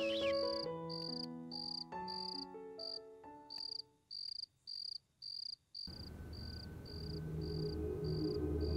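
Crickets chirping in an even pulse, about two high chirps a second. A melody of held notes fades out over the first few seconds, and a low droning background music comes in about six seconds in.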